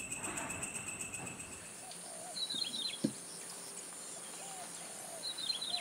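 Night insects trilling in rapid pulses. After about a second and a half this gives way to a countryside morning chorus: a steady high insect hum, two short bursts of bird chirps and a few softer, lower bird calls, with one sharp click about halfway.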